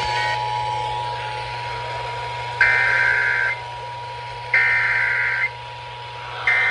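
Emergency Alert System broadcast over radio: the steady two-tone attention signal sounds throughout and stops near the end. Three short, higher bursts of SAME digital header data come about two seconds apart, over radio hiss and a low hum.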